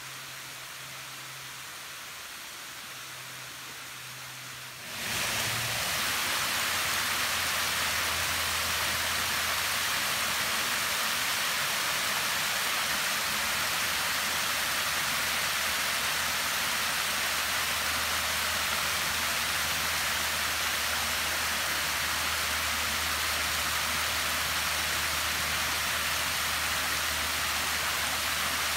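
Creek water rushing over a small rocky cascade: a steady hiss that jumps louder about five seconds in and then holds.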